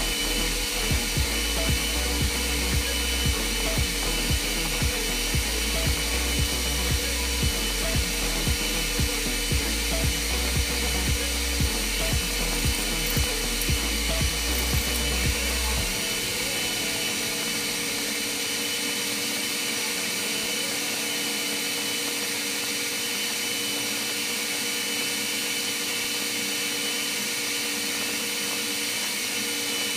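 Electric arc welding on a steel pipe flange: a steady hiss over the constant drone and hum of machinery. Background music with a heavy thumping beat plays over it and stops about halfway through.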